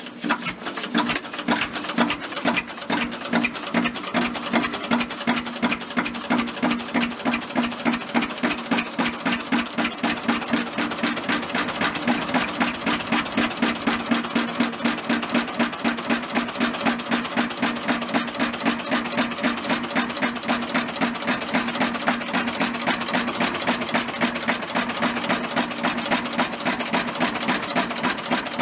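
1938 R.A. Lister diesel engine-generator running with a steady, rapid rhythmic beat.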